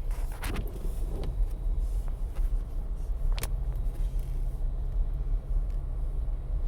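Steady low rumble of a car heard from inside the cabin while driving, with a few faint clicks.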